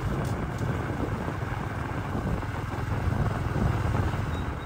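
Steady engine rumble and wind buffeting the microphone from a vehicle moving along a road.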